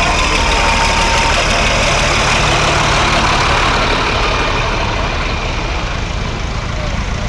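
Large farm tractor's diesel engine running steadily close by, a constant low rumble.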